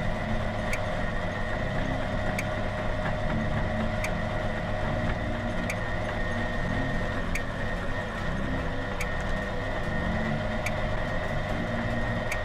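Large motor-driven meat grinder running steadily, a constant drone with a sharp tick about every second and a half.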